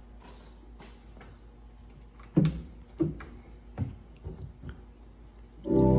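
Several sharp clicks and knocks at the organ console, the first the loudest. Just before the end, the Allen 317EX digital theater organ comes in with a loud, sustained full chord.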